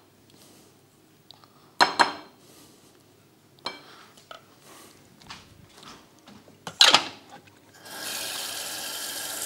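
A utensil scraping and knocking against a stainless steel saucepan, with sharp ringing clanks about two seconds in and again near seven seconds, the second the loudest. Near the end a tap starts running steadily into a sink.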